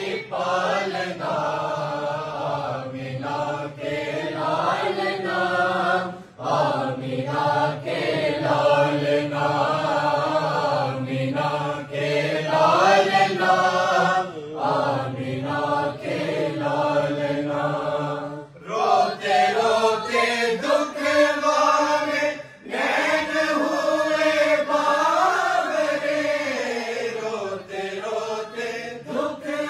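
A group of men and boys chanting durood (salawat) in unison, sung in long melodic phrases with a few brief breaks.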